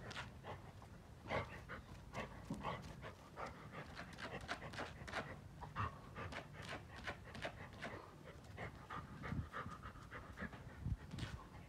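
Golden retriever panting in quick, irregular breaths close to the microphone.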